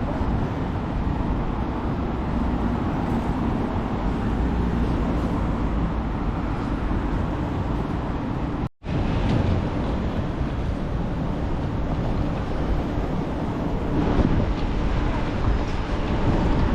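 City street ambience: a steady rumble of passing traffic with general outdoor noise. The sound drops out completely for an instant about nine seconds in, then resumes.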